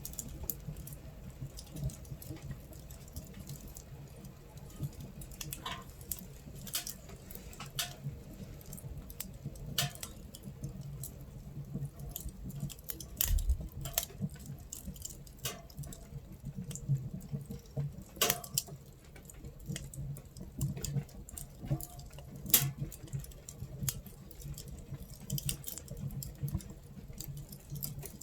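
Wood fire crackling inside a camping stove, with irregular sharp pops, a few louder ones, over a low steady rumble, while rain patters on the tent.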